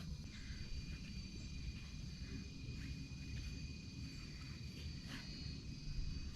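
Steady, high insect drone of several even tones from forest insects, with a low rumble underneath and a few short chirps scattered through it.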